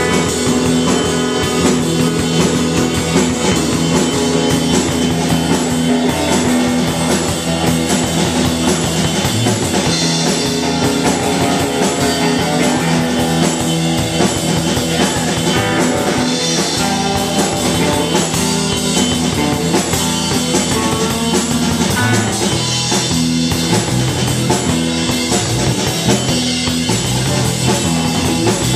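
Live rock band playing: electric guitar, electric bass and drum kit, loud and steady.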